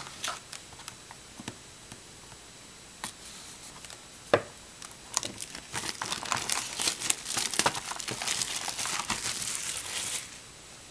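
Plastic shrink wrap being torn and peeled off a sealed cardboard trading-card box. A few scattered crackles and a sharp click about four seconds in, then about five seconds of dense crinkling that stops abruptly near the end.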